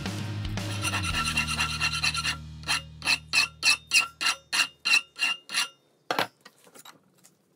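A hand file rasping on a steel bar clamped in a bench vise, in a quick run of about a dozen short strokes, three or four a second, each with a metallic ring. A steady hum runs before the strokes, and a few separate knocks and clinks come near the end.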